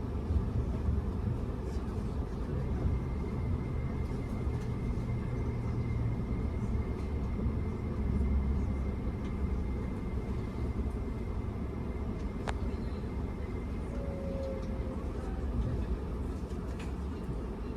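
Tobu Spacia X electric train heard from inside the carriage: a steady low running rumble. A faint high steady whine sits over it for much of the time, and a single sharp click comes about twelve seconds in.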